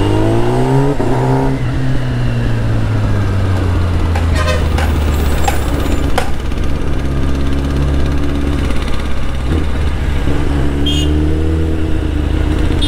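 Kawasaki ZX-10R inline-four engine with an Austin Racing aftermarket exhaust, ridden in traffic: revs rise at the start, drop away after about a second and a half, run steadily, then rise again near the end. A vehicle horn toots briefly near the end.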